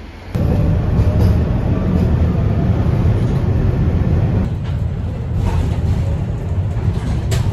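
Tram riding along a city street, heard from inside: a loud, steady, low rumble of the wheels and running gear that begins abruptly about a third of a second in.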